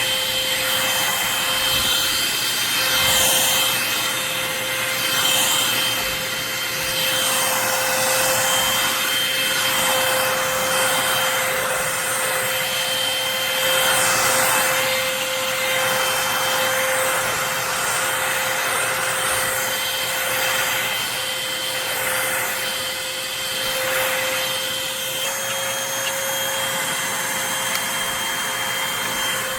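Eureka lightweight corded stick vacuum running on the floor: a steady motor whine under a hiss of suction and brush noise that rises and falls every two to three seconds as it is pushed back and forth.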